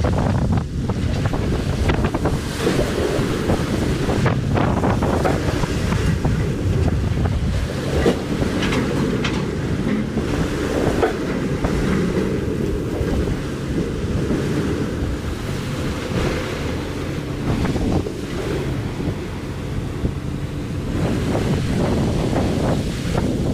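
Storm wind buffeting the microphone over heavy seas breaking against a bulk carrier's hull, a steady loud rushing with gusty surges.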